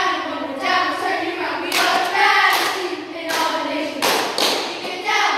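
A group of girls chanting a cheer in unison, punctuated by several sharp hand claps.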